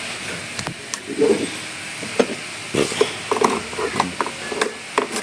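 Irregular clicks and light knocks of plastic and metal as a hand handles the toolbox lock cylinder inside the front glovebox of a Suzuki Burgman 125 scooter, coming thicker in the second half.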